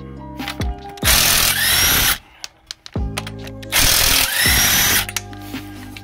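A power tool with a socket spinning lug nuts off a car wheel in two runs of about a second each, its motor whine climbing in each run. Background music plays underneath.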